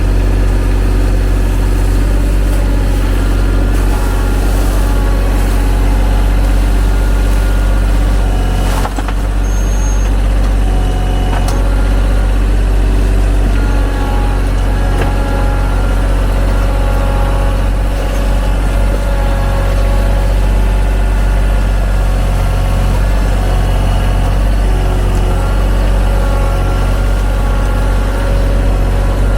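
TYM T313 sub-compact tractor's diesel engine running steadily, with a sharp knock about nine seconds in.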